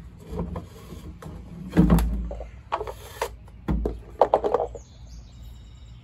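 A metal axle shaft is worked out of a plastic tote wheel and its plastic spacer, giving a string of knocks and clatters. The loudest is a thump about two seconds in, with another thump and a short rattle near four seconds.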